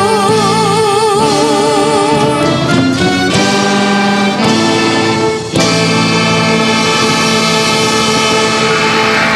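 A live band with trumpets and a singer plays the end of a song. A long note with vibrato over brass and backing gives way to shifting chords, then the ensemble breaks off and comes back on a long held final chord. Applause starts to rise near the end.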